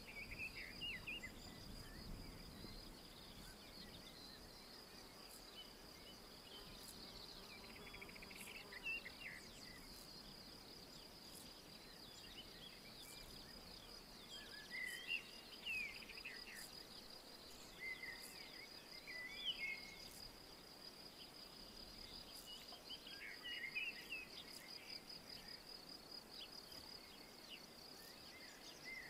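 Faint woodland ambience: a steady, high, rapidly pulsing insect trill, with birds singing short phrases every few seconds.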